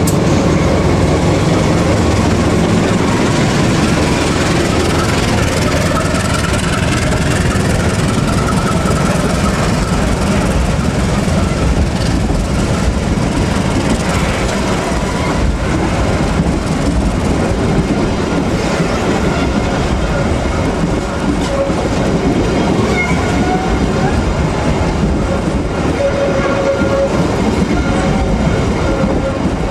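A CC 201 diesel-electric locomotive passes close by with its engine running. A long string of passenger coaches follows, rolling past steadily on the rails, with a few thin higher tones near the end.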